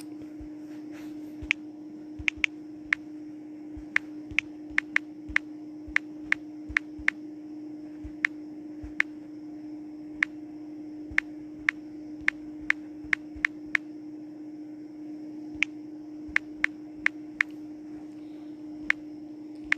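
Sharp, irregular taps of typing on a phone's touchscreen keyboard, a few a second in bursts with short pauses, over a steady low hum.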